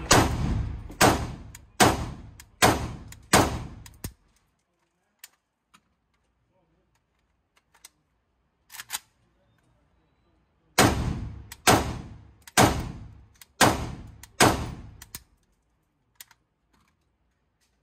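AK74 rifle in 5.45×39 mm fired in two strings of five deliberate shots, about one shot a second, each with a short echoing tail. A few faint clicks of handling come in the pause between the strings.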